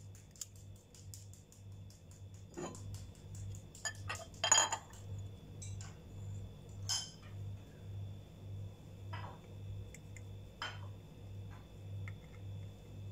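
An egg knocked against the rim of a glass bowl and cracked open, the loudest knock about four and a half seconds in, followed by a few lighter clicks of eggshell as the yolk is passed between the shell halves to separate it from the white.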